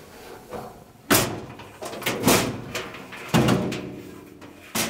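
Four hollow clunks about a second apart, each ringing briefly, as the dryer's sheet-steel drum is bumped and shifted inside the cabinet by hands reaching over it.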